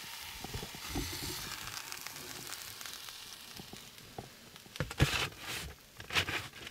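Steak sizzling faintly on fire-heated rocks, then a couple of short knocks and scrapes about five and six seconds in as it is lifted off with a knife and set on a paper plate.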